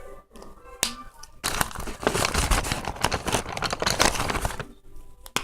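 A loud, close crinkling rustle full of tiny crackles, lasting about three seconds from a second and a half in. A sharp click comes shortly before it and another near the end.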